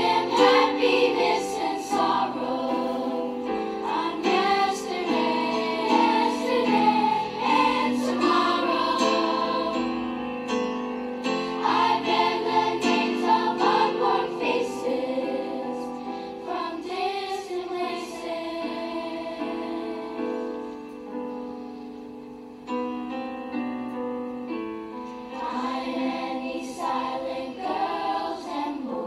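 Background music: a choir singing with instrumental accompaniment.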